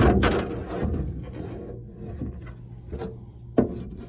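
Handling noise from a desk sneeze guard being moved on the desk: a loud clatter at the start, then rubbing and scraping, and one sharp knock about three and a half seconds in.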